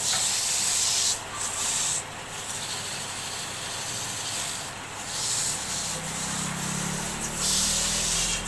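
Woodturning lathe: a tool working against the spinning wood with a steady high hiss, broken by a few short pauses.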